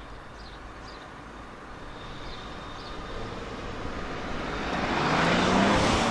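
A car approaching along the road and passing close by, its tyre and engine noise swelling steadily over the last few seconds with a low rising hum. A few faint bird chirps sound in the first three seconds.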